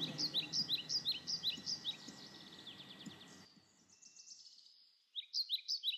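Small bird chirping in a rapid series of short, high, falling notes, about four a second. The chirps fade and stop about three and a half seconds in and start again near the end.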